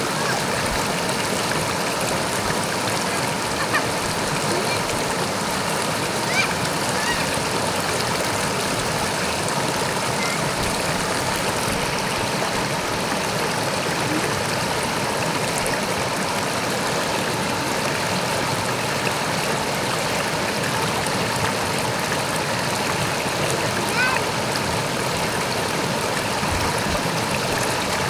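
Shallow rocky river rushing over and around boulders: a steady, even rush of water.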